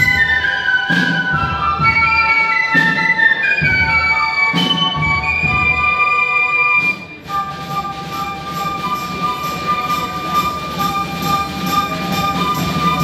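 Brass and wind band playing live. A melody steps downward over a beat struck about once a second, then there is a brief break about seven seconds in, followed by long held chords.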